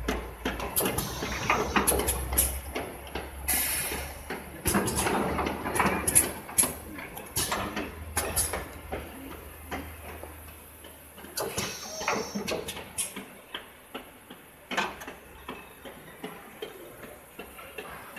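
Champagne bottling line machinery running: irregular clicks and knocks of parts and glass bottles over a low steady hum, which stops about two-thirds of the way through.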